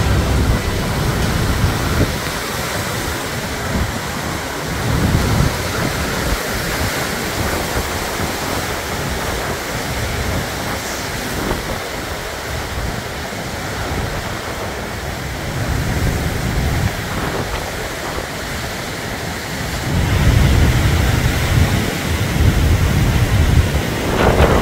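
Hurricane Ian's wind blowing hard with rain, a steady rushing noise. Gusts buffet the microphone with low rumbles about five seconds in and again, loudest, through the last few seconds.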